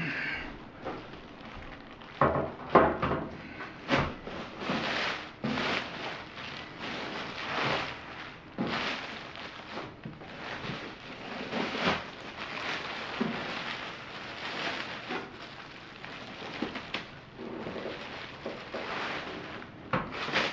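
Plastic wrapping rustling and crinkling in irregular bursts as it is pulled off a steel server case, with a few sharper knocks from handling the case about two to four seconds in.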